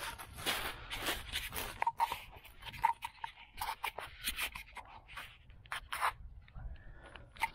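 Footsteps: a run of uneven steps with some scraping.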